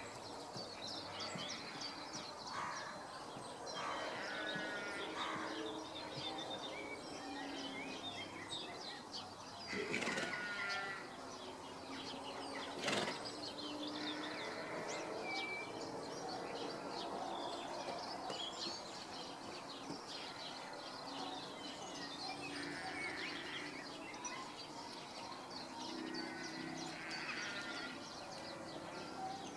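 Birds chirping and trilling on and off over a steady outdoor background noise, with a sharp click about thirteen seconds in.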